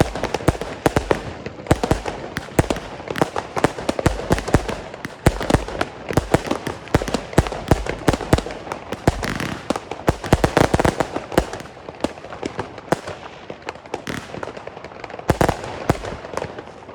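Fireworks batteries firing: a dense, irregular run of launch thumps and shell bursts, with a cluster of loud bangs near the end. By the firing plan these are three Argento Lilac batteries.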